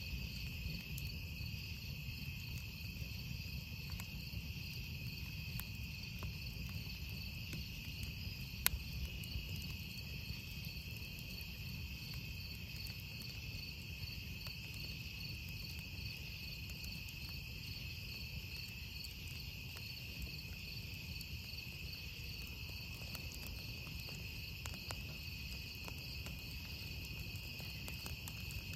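A steady, high chorus of insects chirping, with a fast pulsing beat in its upper voice. A wood campfire crackles now and then, with one sharper pop about nine seconds in.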